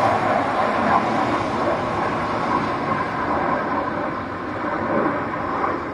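Steady jet engine noise from an F/A-18 Hornet fighter flying past, easing off slightly toward the end.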